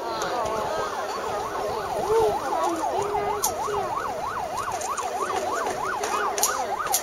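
Electronic siren in a fast yelp, its pitch sweeping up and down about three to four times a second, with a few sharp crackles over it.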